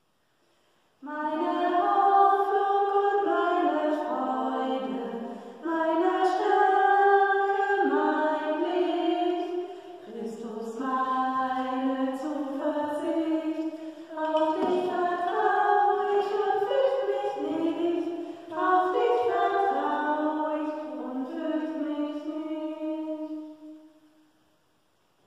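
Unaccompanied female singing of a slow hymn, in several phrases with short breaths between them, starting about a second in and fading out near the end.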